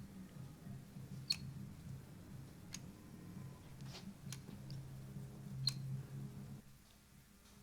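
Faint sharp clicks, about five spread a second or so apart, typical of a caulking gun's trigger being squeezed while laying a bead of caulk. A low hum runs under them and stops near the end.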